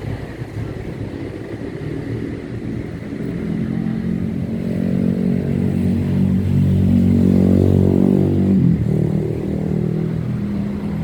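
A motor vehicle's engine passing close by: it grows louder over several seconds and is loudest about seven to eight seconds in. Its pitch then drops sharply as it goes past.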